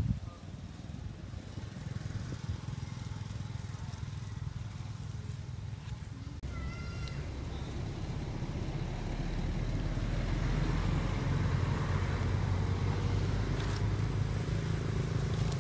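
A baby long-tailed macaque gives one short, high cry about six and a half seconds in. Under it runs a low, steady rumble that grows louder in the second half.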